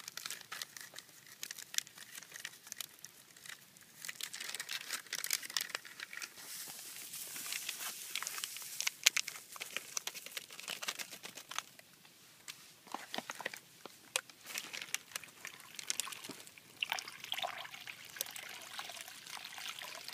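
Thin plastic MRE drink-mix pouch crinkling and rustling as it is torn open and handled, a stream of small irregular crackles.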